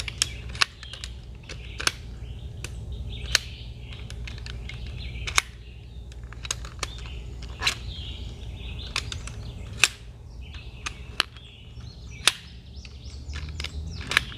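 Metal pole sections of a collapsible camping chair frame clicking and knocking together as the legs are unfolded and snapped into the hub: sharp clicks about a second apart. Birds chirp behind.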